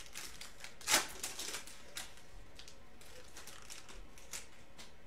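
Foil trading-card pack wrapper crinkling as a pack is opened and cards are handled, a scatter of short sharp crackles with the loudest about a second in.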